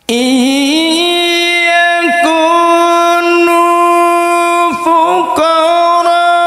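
A male qori reciting a Quranic verse in the melodic tilawah style, in a low register, voice amplified through a handheld microphone. The voice starts abruptly at the beginning and holds a long, steady melismatic note with small ornaments, with brief breaths or breaks about two seconds in and near five seconds.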